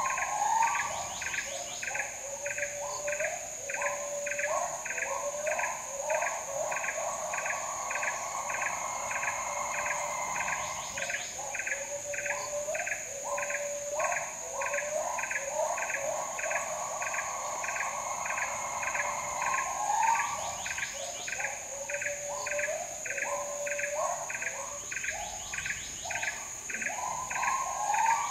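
Bornean rainforest insect chorus: a steady high-pitched whine and a short chirp repeating about twice a second, over louder warbling, trilling calls lower down that swell and fade in a cycle of several seconds.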